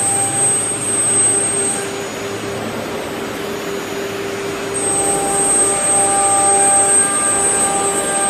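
CNC router's 9 kW HQD air-cooled spindle running at speed with a steady whine, its bit routing through a wooden sheet with a rough cutting hiss underneath. The whine fades behind the cutting noise for a few seconds in the middle.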